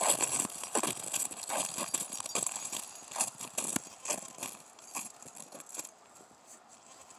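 Footsteps crunching through deep snow at a steady walking pace, growing fainter near the end.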